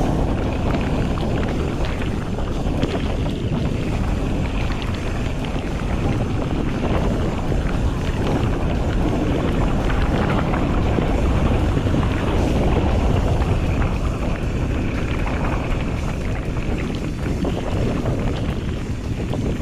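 Wind rushing over the microphone of a camera riding on an Audax enduro mountain bike descending fast, mixed with the rumble of tyres on a wet, muddy dirt road and a constant clatter of small knocks and rattles from the bike going over the rough ground.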